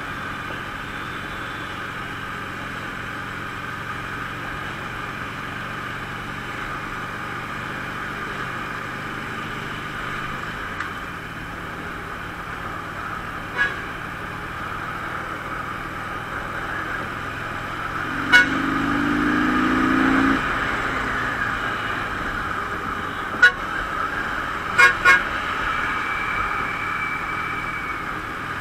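Harley-Davidson SuperLow's V-twin running steadily while riding along in traffic. A vehicle horn sounds for about two seconds about two-thirds of the way through, and a few short sharp knocks come through.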